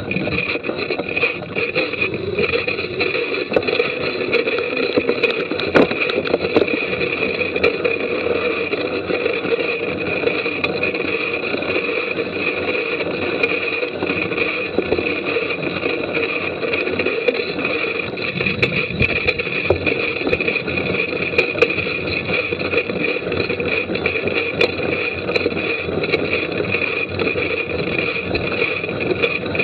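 Mountain bike ridden over a wet, muddy trail, heard from an action camera riding along: a steady rush of tyre and wind noise, with scattered sharp knocks and rattles from the bike over bumps.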